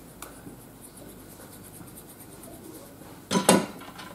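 A glue stick rubbing over a die-cut paper butterfly makes a soft, scratchy rustle. A little over three seconds in comes one louder, brief rustle and thump as the card and butterfly are pressed down by hand onto the work mat.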